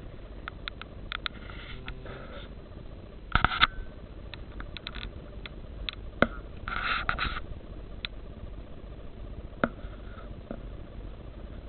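Handling noise close to the microphone: scattered clicks and two short rustles, about three and a half and seven seconds in, over a low steady hum.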